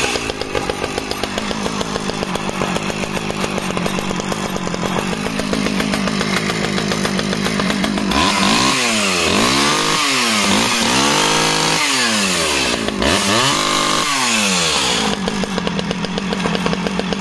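Stihl 009 top-handle chainsaw's small two-stroke engine, freshly started, idling steadily, then revved up and down several times in quick blips, one held high, before settling back to idle. It runs cleanly with no stumbling, what the owner calls flawless running.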